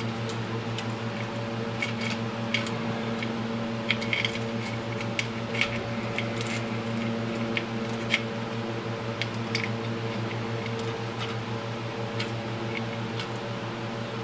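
Light, scattered metallic clicks and clinks of a cam timing chain being worked around by hand inside an ATV engine's open stator housing, over a steady hum in the shop.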